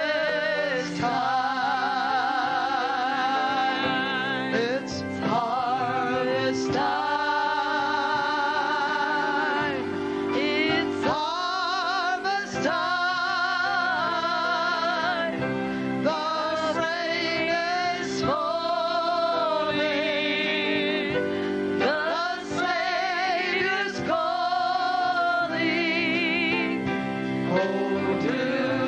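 Worship singing: a high voice with wide vibrato sings long phrases over sustained, steady chords.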